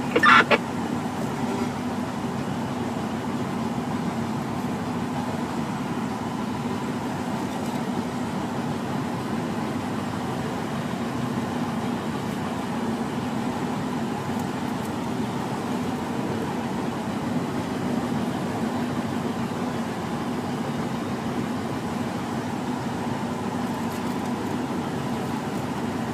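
Steady hum of a vehicle engine running, unchanging throughout.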